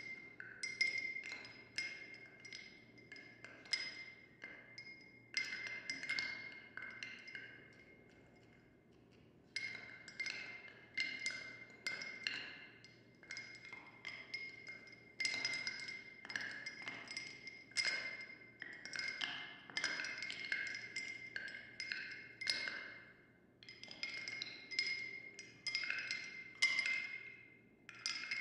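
Ice cubes clinking against a glass: sharp, irregular clinks several times a second, each with a short ringing note from the glass. There is a pause of about two seconds a quarter of the way in.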